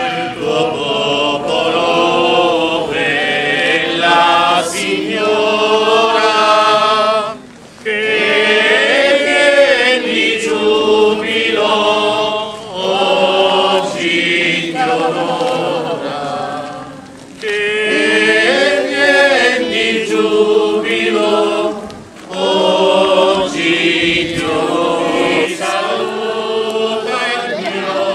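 A group of voices singing a devotional hymn to the Virgin Mary, phrase after phrase with brief breaks between them.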